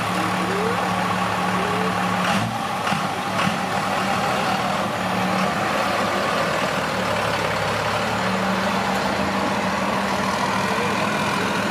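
Cummins diesel engine in a lifted OBS Chevrolet pickup idling steadily, just after being started.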